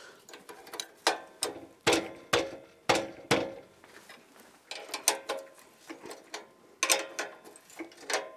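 Spanners turning and knocking on the steel bolts of a winch's roller fairlead: irregular metallic clicks and clinks with a short ring, a few each second, loudest about two to three and a half seconds in.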